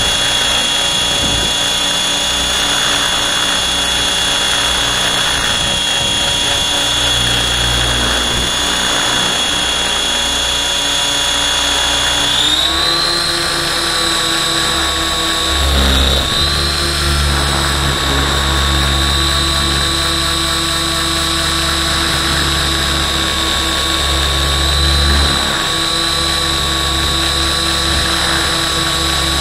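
Align T-Rex 700 radio-controlled helicopter in flight, heard from a camera mounted on it: a steady high whine from its drive and rotor with low rumbling underneath, the whine stepping up in pitch about twelve seconds in.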